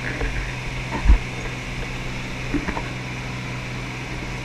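Light single-engine propeller airplane's engine and propeller heard from inside the cabin in cruise: a steady drone, with a couple of soft knocks about a second and two and a half seconds in.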